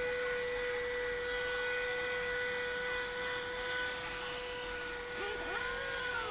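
Bed Head Curls in Check 1875-watt diffuser hair dryer running steadily on its low, cool setting: a rush of air under a steady motor whine.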